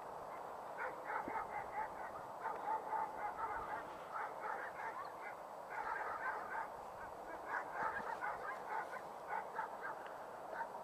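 Repeated short honking animal calls in quick bursts, coming and going throughout.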